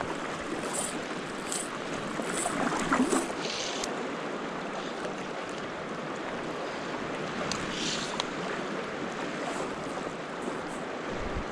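Fast-flowing creek water rushing steadily, with a few brief higher hisses.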